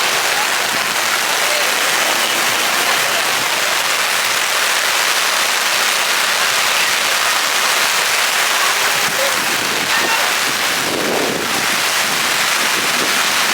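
Heavy rain pouring down, a steady dense hiss of falling drops.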